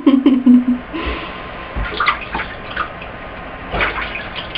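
Water sloshing and splashing in a bathtub as a struggling cat is bathed, with a few sharper splashes about two and four seconds in. It opens with a loud, low, drawn-out cat yowl lasting under a second.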